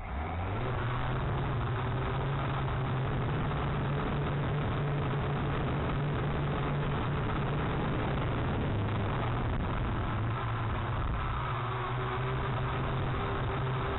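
Small quadcopter drone's motors and propellers running steadily, a constant hum under heavy rushing wind noise, starting abruptly.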